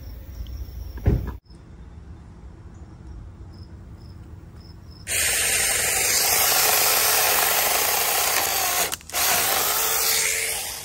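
Cordless 6-inch mini chainsaw running and cutting tree branches, a loud steady buzz that starts about halfway through and briefly drops out once near the end. A thump about a second in.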